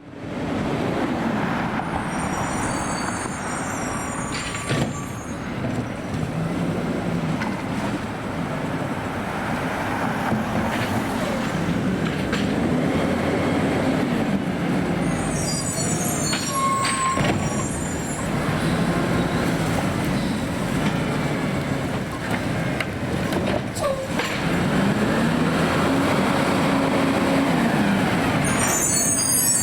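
Garbage truck with an automated side-loader arm running, its engine revving up and down in slow swells several times as it powers the arm's hydraulics, with short high squeaks and hisses now and then.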